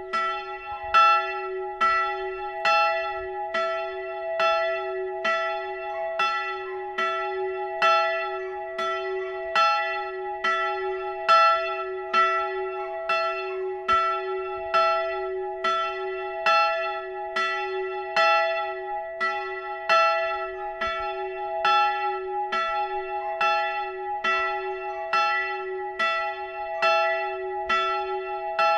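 A single swinging church bell tolling with steady, evenly spaced strokes, each ringing on into the next. This is the one-bell pre-ringing that calls to a service half an hour before it begins.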